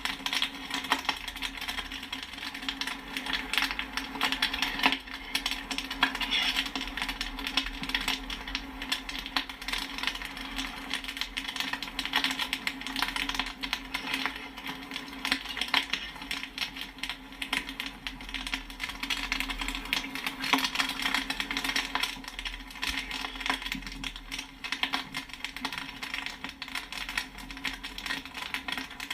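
Popcorn kernels popping and pinging against a metal pan in a dense, continuous run of sharp pops and clicks, over a steady low hum.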